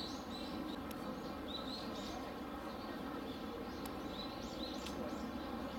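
Small birds chirping in quick runs of short calls, three bursts of several chirps each, over a steady background hum.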